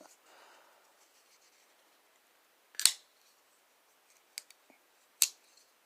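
Folding pocket knife being flipped open and shut on its flipper: three sharp metallic snaps, the loudest about three seconds in and two more a second or two later. The flipper has a strong detent.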